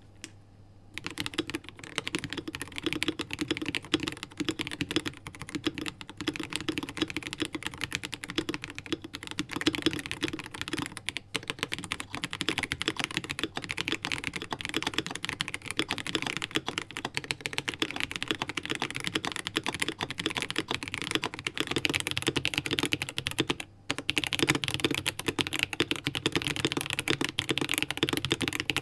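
Continuous fast typing on Press Play Rover 84 mechanical keyboards with tactile switches, a dense run of keystroke clacks starting about a second in. It breaks off briefly twice, near 11 and 24 s, as the board changes: the middle stretch is a Rover84 Lite with Ajazz AS Blue tactile switches, the last a Rover84 with Quark Black tactile switches.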